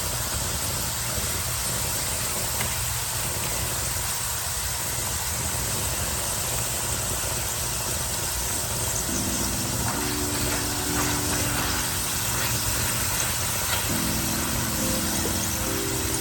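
Pieces of flatbread frying in hot avocado oil in a pan: a steady sizzle with small scattered crackles, over a low steady hum.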